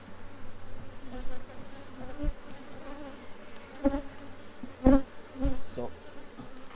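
Honeybee colony in an open hive buzzing steadily, with a few soft knocks from frames and hive box being handled, the loudest about five seconds in.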